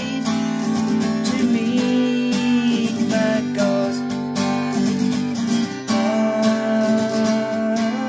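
Acoustic guitar strummed in a steady rhythm, chords ringing between the strokes.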